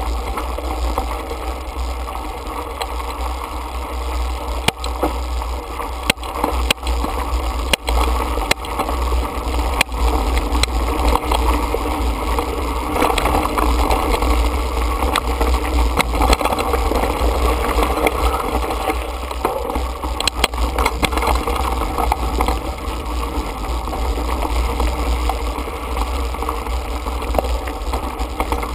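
Mountain bike rolling over rocky gravel singletrack, heard from a handlebar-mounted camera: a steady low wind rumble on the microphone over tyre noise, with frequent sharp clicks and rattles as the bike jolts over stones.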